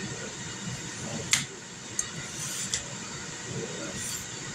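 Ninja Foodi Grill's fan running steadily while it preheats, unusually loud, which the owner fears is a sign the grill is failing. A few short sharp clicks of a vegetable peeler stripping a cucumber.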